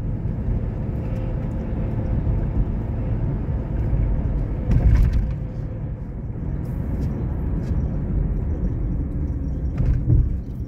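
Steady low rumble of a car driving, heard from inside the cabin: tyre and engine noise, with a brief louder moment about halfway through.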